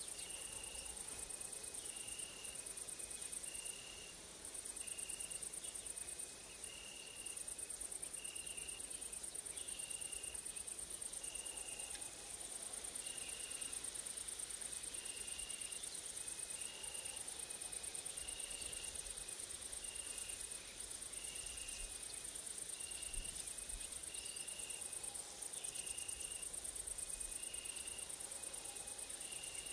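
Crickets and grasshoppers stridulating in summer woodland: a continuous high-pitched buzzing trill that breaks off briefly a few times, over a short two-note chirp, one note slightly higher than the other, repeating about every two seconds.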